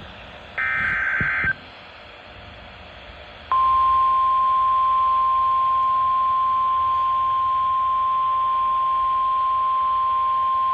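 NOAA Weather Radio EAS alert over radio hiss. About half a second in comes a one-second screech of SAME digital header data. From about three and a half seconds on, the steady single-pitch 1050 Hz warning alarm tone sounds, signalling that a warning (here a severe thunderstorm warning) is being broadcast.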